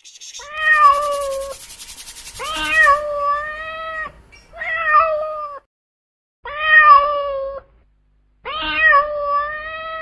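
Domestic cat meowing: five drawn-out meows, each about a second long, with short pauses between them.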